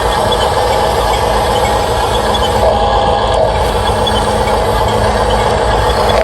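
Small electric motors and plastic gearboxes of radio-controlled model construction machines running steadily with a continuous mechanical whir.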